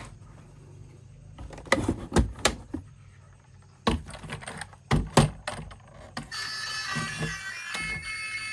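Irregular clicks and knocks of hard plastic toys being handled. About six seconds in, bright electronic music starts.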